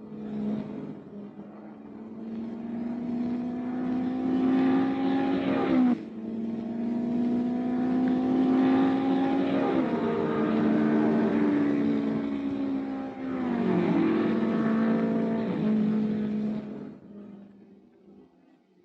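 A racing car's engine accelerating hard through the gears: the pitch climbs and then drops sharply at each of three gear changes. It fades away near the end.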